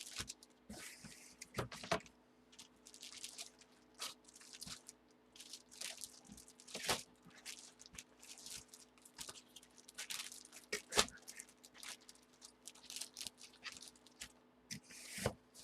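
Trading cards and plastic card sleeves or holders being handled: irregular crinkles, taps and clicks, the sharpest about 7 and 11 seconds in, over a faint steady hum.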